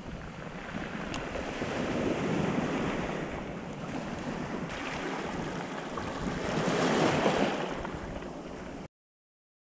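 Small waves breaking and washing over a pebbly shore, swelling louder twice, then cutting off abruptly near the end.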